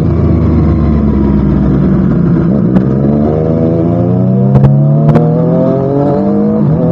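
Triumph Street Triple RS inline-three engine through a Spark slip-on exhaust, running steadily and then rising in pitch for about three and a half seconds as it revs up. The pitch drops sharply near the end, and a few short sharp cracks come during the rise.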